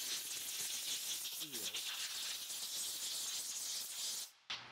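Steady high-pitched hiss of background noise that cuts off abruptly near the end.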